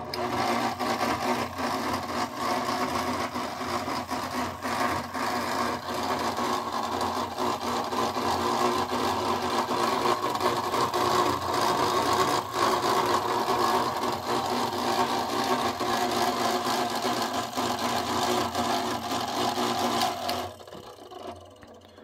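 Gear-driven ceiling fan running on high without its blades: a small side-mounted C-frame motor turning the big flywheel gear through a small gear, making a loud, steady mechanical hum overlaid with constant rapid gear chatter. Roughly twenty seconds in the motor cuts out and the noise falls away as the fan coasts down.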